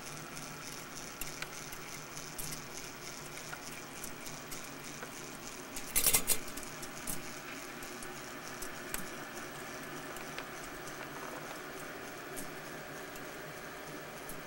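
Kinetico brass-wire kinetic clock's mechanism running: light, irregular clicks and ticks from its gears and moving figures, with a louder burst of clicking and rattling about six seconds in.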